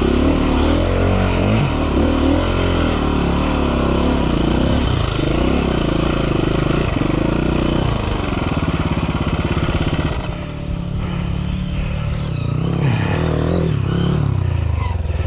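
Enduro dirt bike engine revving up and down as it rides the trail, its pitch rising and falling again and again. About ten seconds in it eases off and runs lower and steadier.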